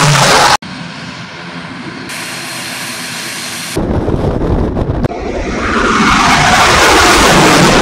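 Aircraft engine noise in quick cuts. First a steady engine drone, then louder turboprop noise, heavy in the low end, from an ATR 72-600 on the runway. Last, a rush of aircraft noise that swells to its loudest near the end.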